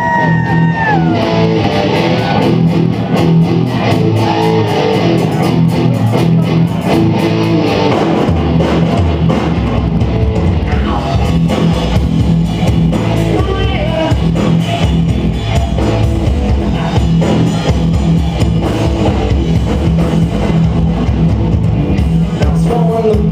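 Live rock band playing: electric guitars over a drum kit, with pitches sliding in the first second and the low end growing heavier about eight seconds in.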